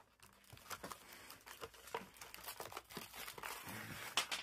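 A Pokémon card blister pack's cardboard backing and plastic shell being torn open and crinkled by hand: irregular crackling and tearing, busier toward the end with one sharp snap.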